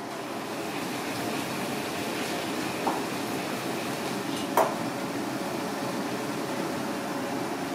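Steady rushing noise of a commercial kitchen, from lit gas burners and ventilation. A light click comes a little under three seconds in, and a sharper knock about four and a half seconds in.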